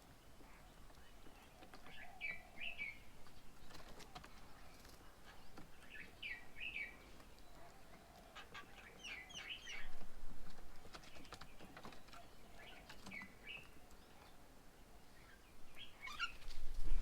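Small birds chirping in short bursts of quick, rising-and-falling notes every few seconds, with scattered sharp clicks and knocks between them.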